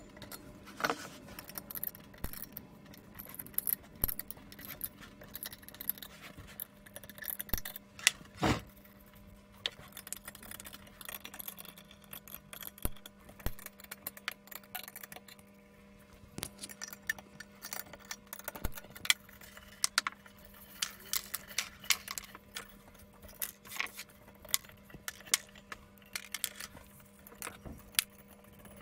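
Scattered small metal clicks and clinks: a spanner working the nuts off the studs that hold a stainless-steel electron microscope column together, and loose nuts and washers clinking as they are handled and set down. A faint steady hum runs underneath.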